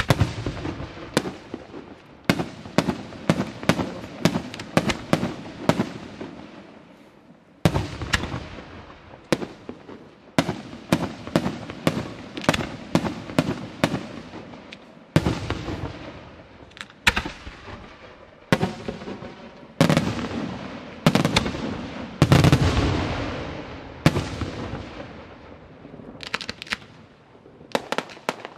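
Aerial firework shells bursting in quick volleys: dense runs of sharp bangs, each trailing off in a rolling echo, with short lulls between volleys.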